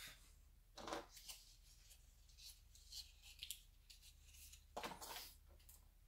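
Quiet handling noise: faint rustles and clicks of small accessory parts and cardboard packaging being picked out of a phone box by hand, with the loudest rustles about a second in and near five seconds.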